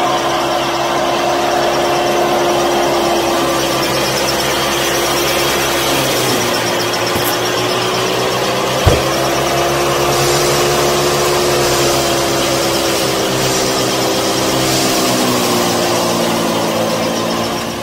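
Small electric motor driving a miniature wheat thresher, running steadily with a whine whose pitch sags slightly now and then. A single sharp click comes about nine seconds in.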